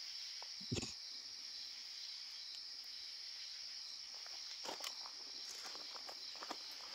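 Steady high-pitched chorus of night insects such as crickets, with a few faint clicks and taps about a second in and again around five seconds.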